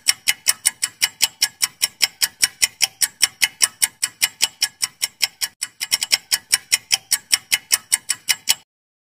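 Clock-ticking sound effect: sharp, fast ticks at about four or five a second, as a quiz countdown timer, stopping abruptly near the end.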